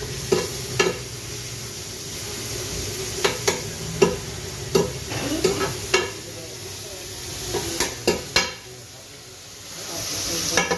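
Tantuni beef sizzling in the well of a large steel tantuni pan, with a metal spatula scraping and striking the pan in sharp, ringing clanks, about a dozen of them.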